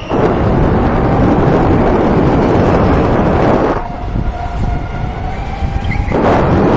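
Electric go-kart driving at speed: a loud rushing noise of wind and tyres on the onboard camera, which eases for about two seconds midway as the kart takes a corner, letting a steady, slightly rising electric-motor whine come through before the rush returns.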